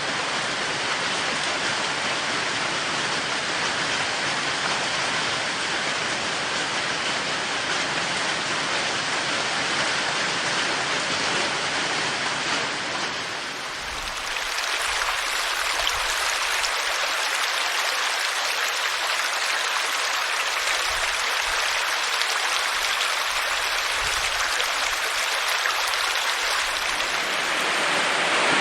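Steady rain falling, an even hiss of water. About halfway through it cuts to a different recording of falling or running water, thinner and hissier with little low rumble.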